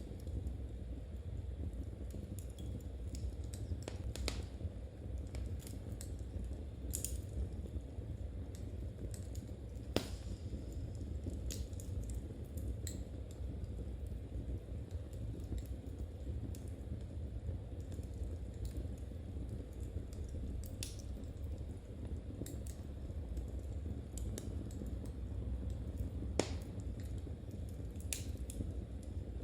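Knitting needles clicking softly and irregularly as stitches are worked, with a few sharper clicks or pops scattered through over a steady low rumble.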